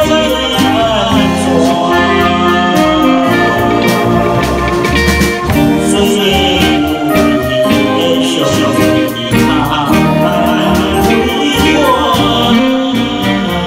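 A man singing a slow Taiwanese Hokkien enka-style ballad into a microphone, his voice wavering and gliding between notes, over keyboard and guitar accompaniment.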